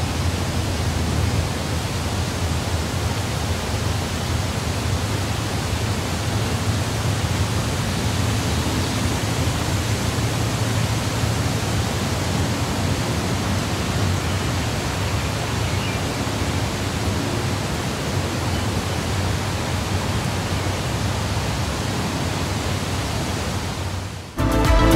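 Steady outdoor rushing noise, an even hiss over a strong low rumble, the kind left by wind across open country and the microphone. Music cuts in near the end.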